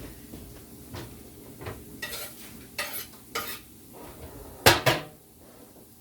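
Cooking clatter: a utensil scraping and clinking against a pan or cutting board, with two loud sharp knocks in quick succession about a second before the end, over faint sizzling of onions frying in the pan.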